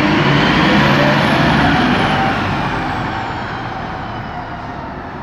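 A heavy road vehicle's engine running close by, loudest about a second in and then fading away as it moves off.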